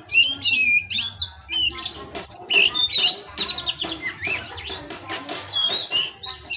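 Oriental magpie-robin (kacer) singing a fast, varied song of short whistles, chirps, glides and harsh scratchy notes, in the rich 'full isian' style used as a tutor recording.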